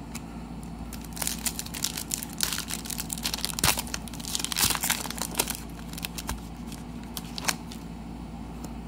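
A foil pack of Legacy football trading cards being torn open by hand: a rapid run of crinkling and crackling for a few seconds. A single sharp click follows near the end.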